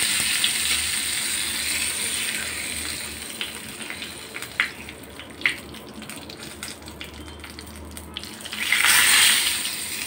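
Hot tadka (mustard seeds, cumin, hing, dried red chillies and curry leaves) sizzling as it hits the watery fermented rice in a clay pot, the hiss fading over the first few seconds. A few clicks follow from a steel spoon against the pot, and a second short burst of hissing comes near the end.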